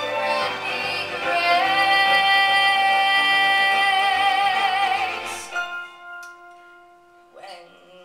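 A woman singing a musical-theatre song with piano accompaniment, her voice wavering in vibrato and holding one long note. The voice and accompaniment stop about five and a half seconds in, leaving a few notes ringing out quietly.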